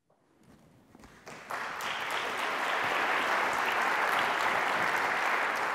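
Audience applauding, coming in about a second in and building quickly to a steady level.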